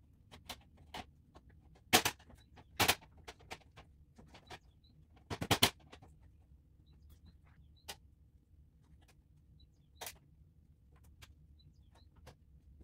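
Sharp plastic clicks and knocks from a 2014 Range Rover's front grille and its clips being worked by hand: two single clicks about two and three seconds in, a quick run of four about halfway through, and one more later.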